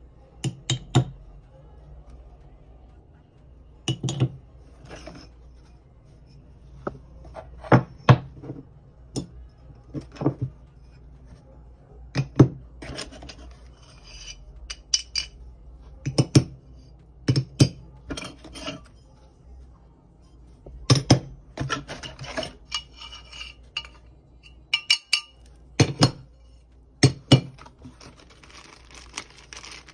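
Hard parts, metal among them, being handled and set down: irregular clinks and knocks, some in quick pairs or triples, with rubbing and sliding in between.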